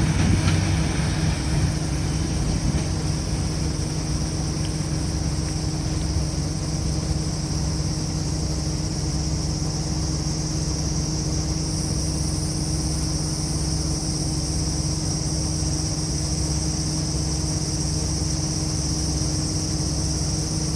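Diesel engines of a KiHa 52 and KiHa 28 railcar pair running as the train pulls away, louder in the first second or two, then settling into a steady low drone. Insects buzz high and steady throughout, a little stronger after the middle.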